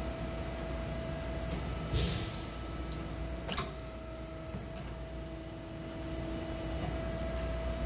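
Hydraulic PEMSERTER press forming a louver in 18-gauge stainless steel sheet with a 3D-printed PLA forming tool. A steady hum runs throughout, with a loud short rush of noise about two seconds in as the ram comes down, and a sharp click about a second and a half later.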